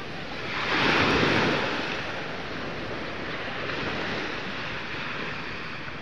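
Small waves breaking at the shoreline: one wave swells and washes up about a second in, then the surf settles back to a steady hiss.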